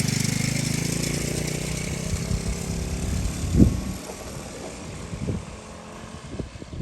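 A small engine buzzing, its pitch dropping slightly as it fades away over about four seconds, with a single knock about three and a half seconds in.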